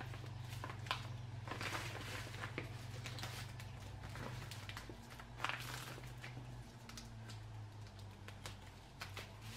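Woven plastic feed bag rustling and crinkling as it is folded and handled, with a few light clicks and taps and two louder rustles, one near two seconds in and one past the middle. A steady low hum sits underneath.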